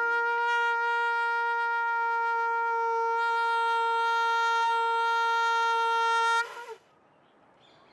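A conch shell (shankh) blown in one long, steady, unwavering note. It is held for about six and a half seconds and then cuts off, leaving quiet.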